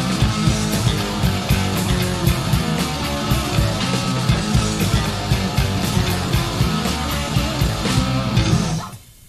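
Hard rock band recording, electric guitar over a steady, driving drum beat; near the end the whole band stops abruptly for a short break.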